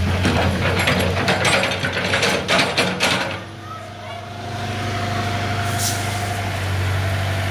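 Backhoe loader's diesel engine running steadily, with a run of metallic clanking and rattling over the first three seconds. A brief high hiss comes near six seconds in.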